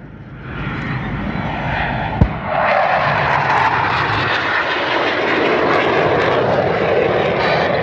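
RAF BAE Hawk T2 jet trainers' Rolls-Royce Adour turbofans passing as the pair breaks outwards, the jet noise swelling over the first couple of seconds and then holding loud and steady. A single sharp knock sounds about two seconds in.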